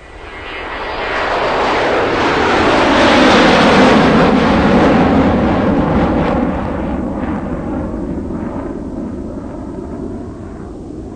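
A loud rushing noise that swells for about four seconds, dropping in pitch as it peaks, then slowly fades away.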